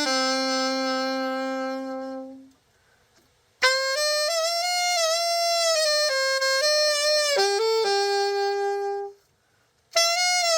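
Yamaha YAS-62 alto saxophone, freshly overhauled, played solo. A long low held note fades out, then after a short pause comes a phrase of higher held notes with slight vibrato, and a new phrase starts near the end.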